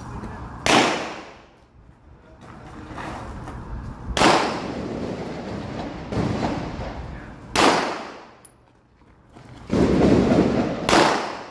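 Several single pistol shots fired live on a range, spaced irregularly one to three and a half seconds apart, each with a fading echo.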